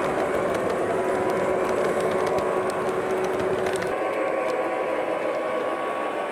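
O-gauge model diesel locomotive running with its onboard engine sound playing a steady diesel drone, over the rumble of the train rolling on the track, with light clicks midway. The sound shifts abruptly about four seconds in.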